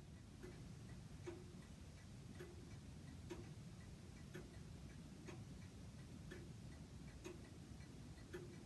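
Faint, regular ticking, about two ticks a second, over low steady room noise.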